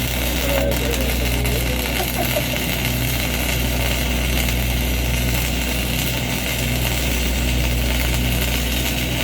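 Self-shielded flux-core wire welding arc (Lincoln NR-233 wire) crackling and hissing steadily through one continuous bead, over the steady low running of an engine.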